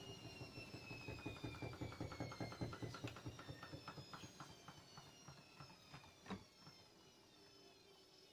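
Front-loading washing machine winding down after a spin: a motor whine falling steadily in pitch, with a rapid knocking from inside the drum that slows and fades, and one louder knock about six seconds in.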